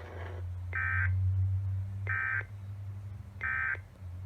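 Emergency Alert System end-of-message signal received over FM radio: three short, identical bursts of digital SAME data tones, about a second and a half apart, marking the end of the test message. A steady low hum runs underneath.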